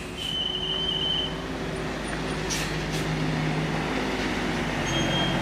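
Bus engine running steadily and growing slightly louder as it passes. A single high-pitched tone sounds for about a second near the start.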